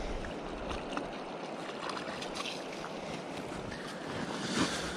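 Steady rush of wind on the microphone and moving river water, with faint scattered scrapes and knocks, and a louder scuffle near the end.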